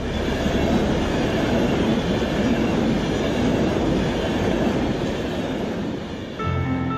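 Electric-hauled passenger train passing at speed close by, a dense rushing rumble of wheels on rail that eases off after about six seconds. Music comes in near the end.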